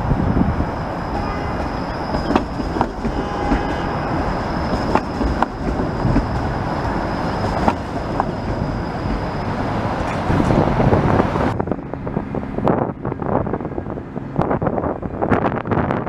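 Bombardier Flexity Outlook low-floor streetcar rolling past close by, its wheels clicking sharply over rail joints and crossing track, with a thin steady high whine over the rumble. About three-quarters of the way through the sound changes abruptly to a duller rumble with scattered clicks as another streetcar approaches.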